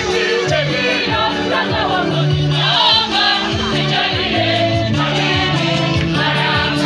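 Youth choir singing a gospel hymn, accompanied by an electronic keyboard playing held bass notes over a steady beat.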